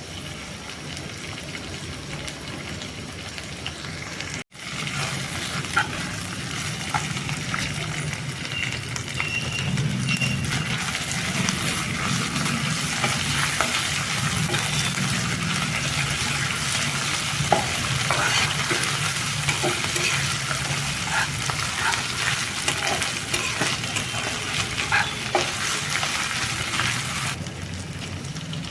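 Chicken pieces sizzling in hot oil in a pan as they are dry-fried for bhuna, stirred with scattered scraping clicks. The sound breaks off briefly about four seconds in and comes back louder.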